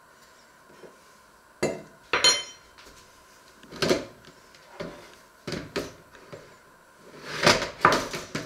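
Crockery and a plastic desk clock being set down and shifted on a wooden worktop: a series of separate knocks and clatters. One knock about two seconds in rings briefly.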